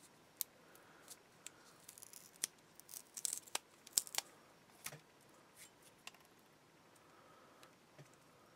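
Faint scattered clicks and light rustles of SC-size rechargeable battery cells and their metal solder tabs being handled and fitted together by hand, busiest in the middle.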